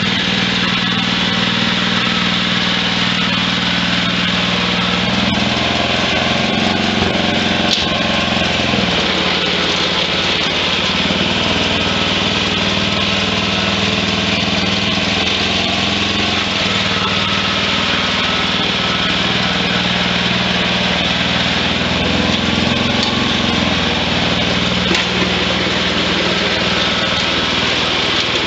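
Wheel Horse garden tractor's small single-cylinder engine running steadily under way, its pitch rising briefly about five seconds in and again about twenty-two seconds in.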